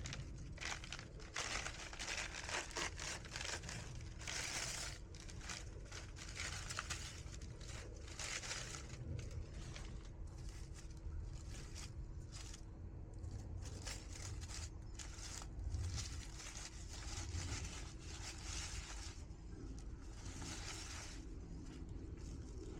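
Irregular crinkling and rustling of something being handled, in bursts of up to about a second, over a faint steady hum.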